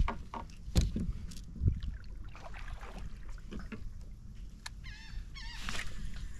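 Fishing gear being worked in a plastic kayak: a few sharp clicks and knocks in the first two seconds, over a steady low wind rumble on the microphone. About five seconds in, a bird calls with quick warbling notes.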